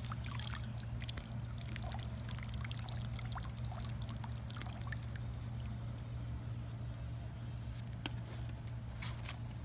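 Water trickling and dripping from a pool skimmer net as it is lifted out of the pool, over a steady low hum. Two sharp clicks near the end.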